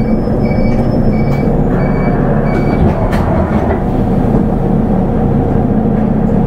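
Nissan Diesel Space Runner RA city bus's diesel engine running with a steady drone. A high electronic beep repeats about one and a half times a second and stops about three seconds in.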